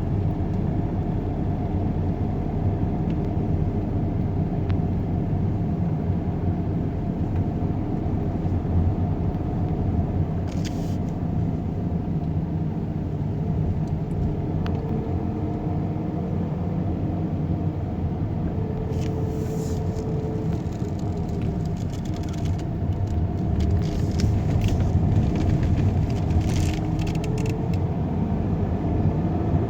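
Steady low vehicle rumble, with a few brief sharp clicks about a third of the way in and again in the second half.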